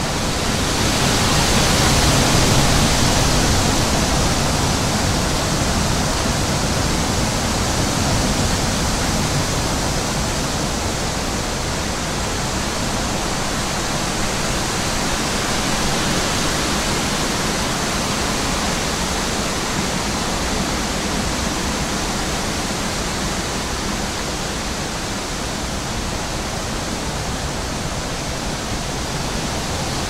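Wind sound effect: a steady rushing of wind that swells in a gust about two seconds in, then holds level.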